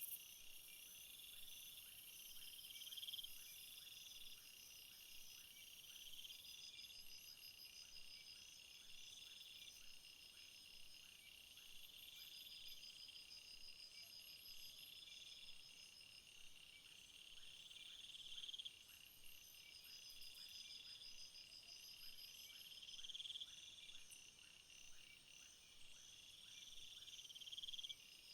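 Faint chorus of crickets and other field insects chirping in several overlapping layers, high-pitched trills coming in short bursts every two or three seconds over a steady high hiss.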